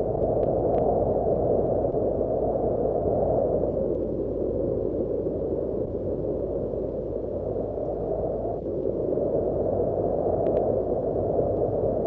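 Wind blowing in gusts, a low rushing noise that swells, eases off in the middle and rises again near the end.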